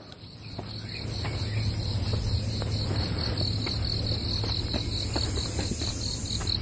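Insects chirping in a fast, even, high-pitched pulse of about five chirps a second over a steady high hiss, with light irregular footsteps on stone steps.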